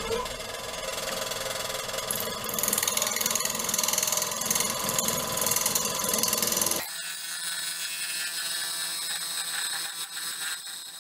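Turning tool cutting a spinning bowl blank of silver maple burl and epoxy resin on a Nova Galaxi DVR lathe, a steady scraping rush over the lathe motor's whine as the lopsided blank is trued up. About seven seconds in, the low rumble drops away abruptly, leaving the whine and a thinner cutting sound.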